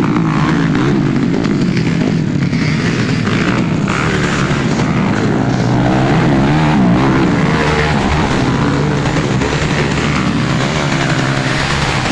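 Several motocross dirt bikes racing past close by, their engines revving up and down.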